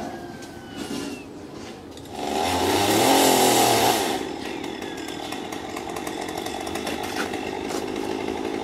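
Chainsaw revved to full throttle for about two seconds, starting about two seconds in, then dropping back to a lower, steadier running.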